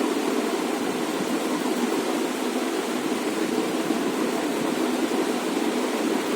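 Steady, unchanging hiss-like noise with no distinct events.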